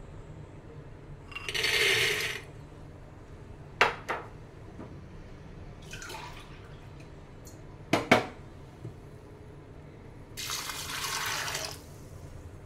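Soaked dried peas poured from a glass bowl into a steel pressure cooker pot, a short rattling rush, followed by a few sharp knocks, the loudest a pair about two-thirds of the way through. Near the end, water is poured into the pot over the peas for about a second and a half.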